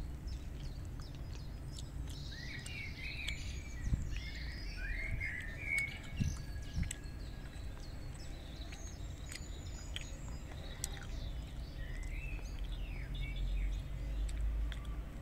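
Small birds chirping in short scattered bursts of calls, over a steady low background rumble.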